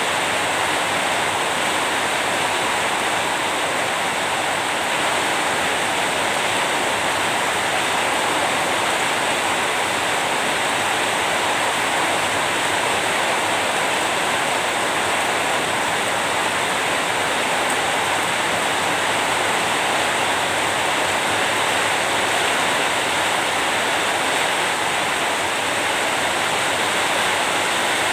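Steady rain: a constant even hiss with no separate drops, thunder or changes standing out.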